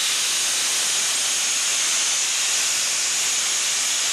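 A 4-inch angle grinder with a wire wheel brushing rust and grime off a small engine's shaft, giving a loud, steady hiss.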